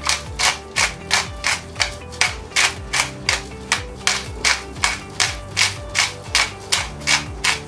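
Salt-and-pepper grinder being twisted by hand, its grinding mechanism crunching the peppercorns and salt in a steady run of short rasping strokes, about three a second, over background music.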